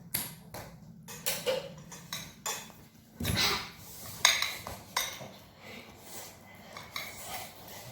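Eating utensils clinking and scraping against dishes: irregular sharp taps and clicks, with a louder scrape about three seconds in and a sharp clink about a second later.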